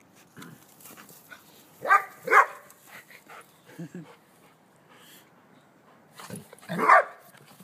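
Dog barking in play: two sharp barks in quick succession about two seconds in, a couple of softer barks around four seconds, and one loud bark near the end.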